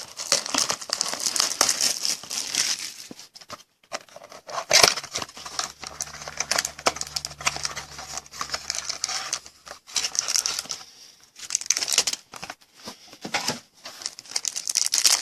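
Plastic wrapping on a trading card box and pack crinkling and tearing in irregular bursts as it is opened, with a few brief pauses.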